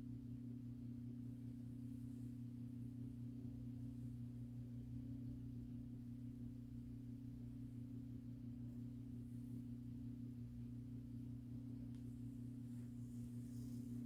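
A steady low drone, two held low tones that do not change, with faint rustling near the end.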